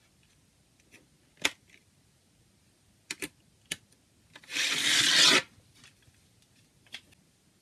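A plastic CD jewel case handled on a wooden tabletop: several sharp clicks and taps, and a loud sliding scrape lasting about a second midway.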